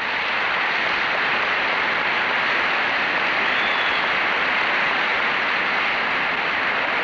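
Large audience applauding, a steady dense clapping held at full strength.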